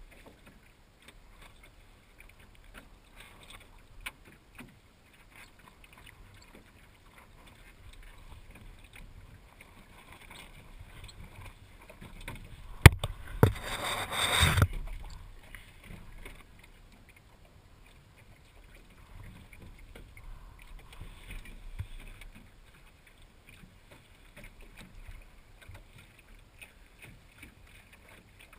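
Small sailing dinghy ghosting along in light air: faint water and wind noise around the hull. About 13 seconds in there is a sharp knock, followed by about a second of louder rustling and clattering.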